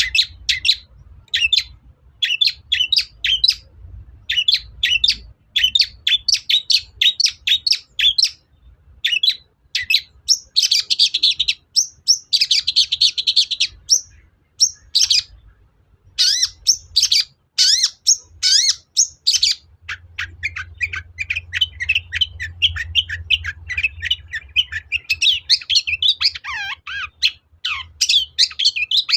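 Long-tailed shrike singing a fast string of short, sharp chattering notes. Dense trilled bursts come in the middle, and a long run of quicker notes follows, with a few falling notes near the end.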